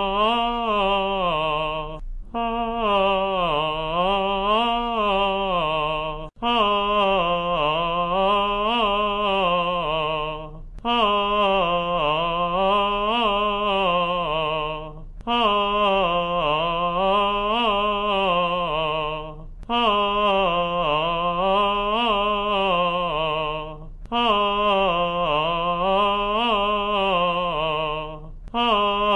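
A man's trained singing voice sings a legato vocal exercise: smooth phrases that rise and fall in pitch, each about four seconds long, with a short pause for breath between them.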